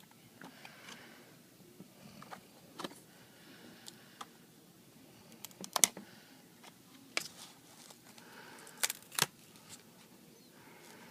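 Scattered small clicks and taps with faint scraping as a pry tool and a plastic card work the glass of an iPad 3 loose from its glue. The sharpest click comes about six seconds in, and a close pair of clicks follows about three seconds later.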